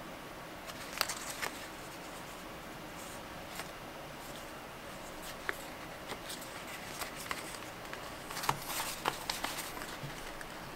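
Paper handling: a printed card is lifted, turned over and folded against the pages of a book, giving soft rustles and scattered sharp paper clicks, with a busier cluster of them near the end.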